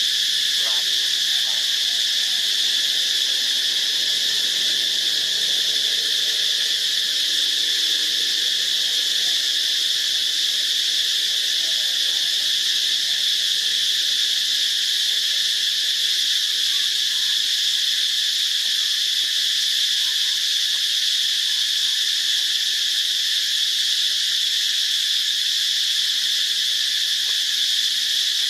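A steady chorus of insects, one high, even buzzing drone that holds at the same pitch and level throughout.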